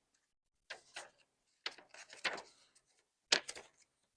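Small scissors snipping through a paper stencil: several short cuts in separate bursts, with brief pauses between them.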